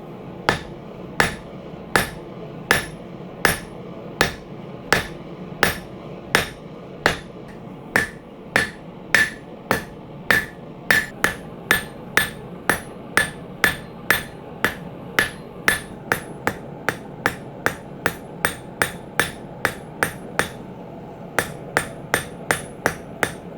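Hand hammer striking hot rebar on an anvil to forge a temporary punch, each blow ringing sharply. The blows come about one and a half a second at first and quicken to about three a second later on, with a brief pause shortly before the end.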